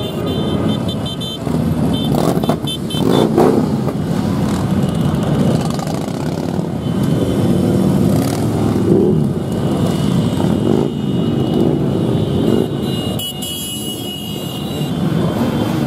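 A stream of motorcycles, many of them big cruisers, riding past slowly in close procession. Their engines run together, and pitch rises and falls again and again as riders open the throttle passing by.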